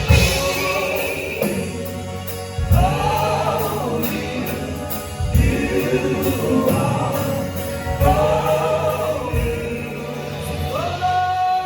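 Live gospel-style Christmas singing with instrumental accompaniment: a voice sings long, bending held notes over low chords struck about every two and a half to three seconds, and a new held note begins near the end.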